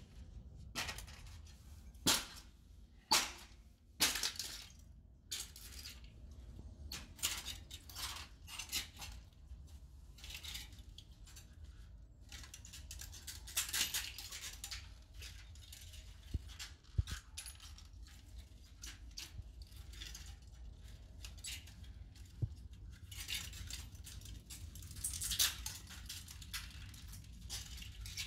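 A DJI FPV drone's plastic shell and parts being pulled and broken apart by hand: irregular clicks, cracks and clinks with stretches of scraping, the sharpest snaps a few seconds in.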